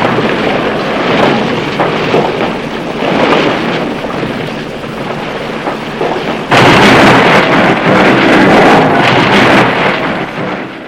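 Showa-era tokusatsu monster-fight sound effect: a continuous loud rumbling crash of noise that jumps much louder about six and a half seconds in, then tails off and stops near the end.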